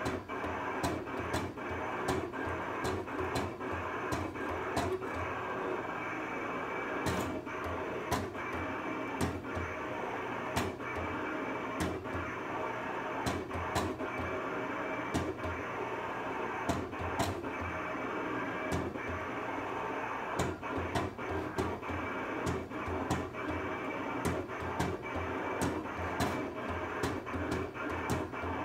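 Cutting plotter tracing a family-crest design on a stencil sheet: its head motors run with a steady whir, broken by frequent sharp clicks at an uneven pace.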